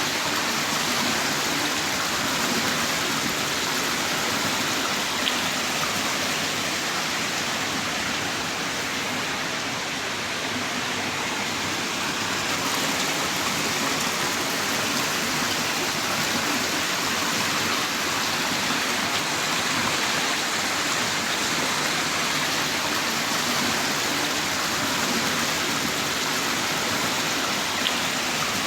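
Heavy rain downpour: a dense, steady hiss of rain with no let-up, and a couple of faint drop ticks.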